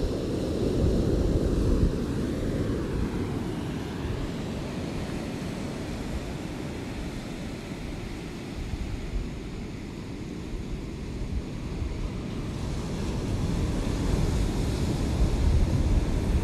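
Ocean surf: waves washing in a continuous rush, loud at first, easing off in the middle and building again near the end.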